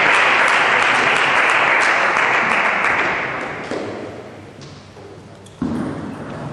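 Spectators clapping for a won point in a table tennis match, the applause dying away over a few seconds. A sudden, short, louder sound comes near the end.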